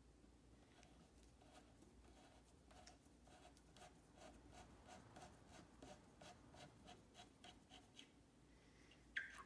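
A slot-head screwdriver slowly turning out the glued neck screw of a 1971 Gretsch guitar's neck joint by hand, the screw ticking faintly in the wood about three or four times a second.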